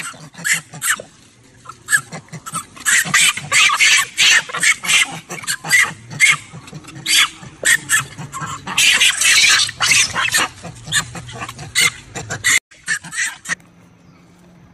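Macaques shrieking and squealing in a rapid flurry of short, high-pitched calls. The calls stop about 13 seconds in, leaving a low hum.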